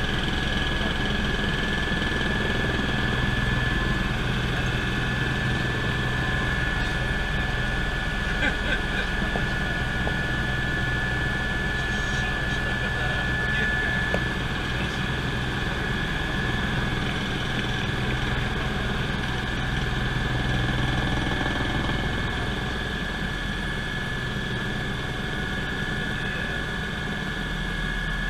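Cabin noise of a Eurocopter EC120 Colibri single-turboshaft helicopter in flight: a steady low drone from the rotor and drivetrain with a steady high whine over it, easing slightly near the end.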